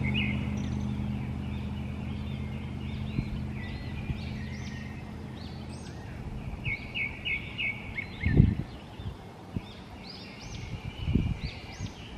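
Songbirds singing, short chirping phrases repeated again and again. A low engine hum fades away over the first few seconds, and a few low thumps come later, the loudest about eight seconds in.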